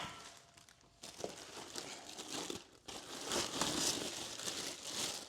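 Crinkling, rustling handling noise, loudest in the second half.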